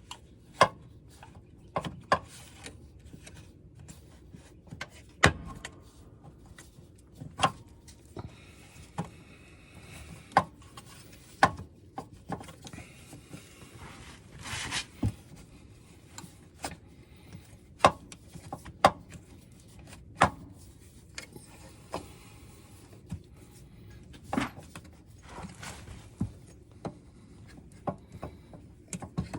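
Scattered sharp metal clicks and knocks with some scraping, as a tractor drive shaft is worked back up into place by hand in a tight space.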